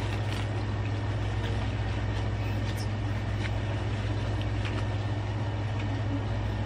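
A steady low mechanical hum, with a few faint clicks and rustles.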